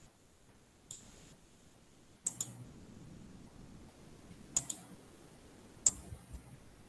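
Faint computer mouse clicks, four sharp ones spaced a second or more apart, with a few softer ticks between.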